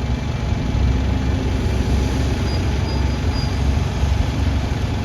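Diesel bus engine running close by: a steady, loud low rumble, with a faint high whistle from the turbocharger for about a second midway.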